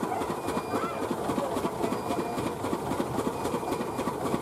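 Poha-making machine running, its pan and pressing cylinder working rice into flakes with a fast, steady clatter.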